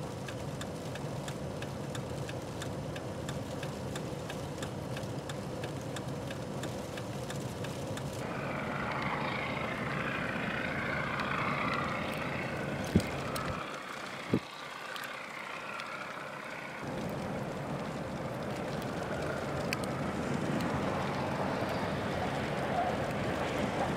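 Steady motor-vehicle noise with a rushing hiss, changing character about eight seconds in, with two sharp clicks a little past halfway.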